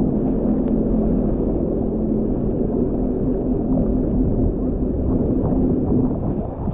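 Sea-Doo RXT-X 300 personal watercraft's supercharged three-cylinder Rotax engine running at a steady speed, a loud even hum, with the engine note easing off near the end.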